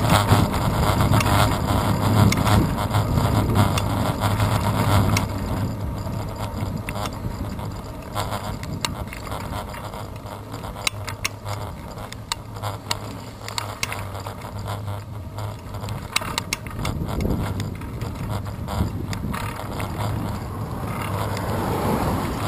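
Wind rush and tyre rumble from a road bicycle riding on asphalt, picked up by a handlebar-mounted GoPro Hero 2. Louder for the first few seconds, then quieter, with scattered short clicks and rattles.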